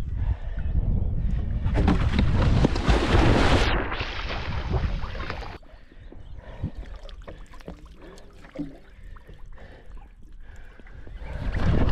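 Wind rushing over the microphone with water sounds. It cuts off sharply about halfway through, leaving quieter water with a few small knocks.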